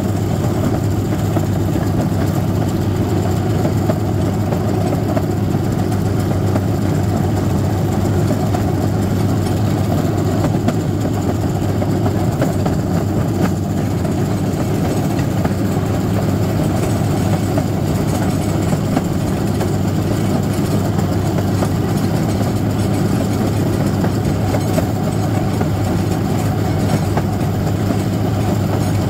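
Small motorized railcart (speeder) running steadily along rail track: a constant engine hum with the wheels rolling on the rails and faint scattered ticks.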